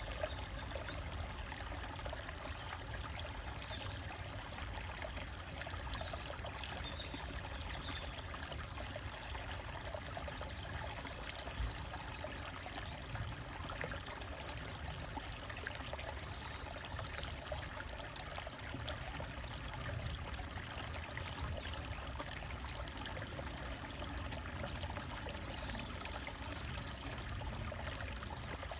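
Small forest stream trickling and splashing over rocks in a steady, unbroken flow. Faint, brief bird chirps come through now and then.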